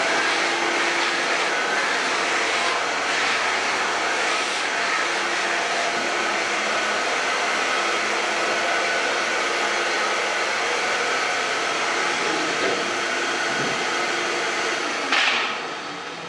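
Wet-and-dry shop vacuum running steadily, a loud even hiss with a faint motor hum, which cuts off about fifteen seconds in.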